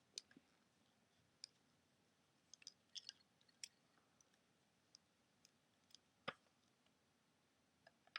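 Faint, scattered clicks and taps of a small metal-and-plastic sonic screwdriver replica and its tips being handled, with a few clicks close together about three seconds in and the sharpest click a little after six seconds; otherwise near silence.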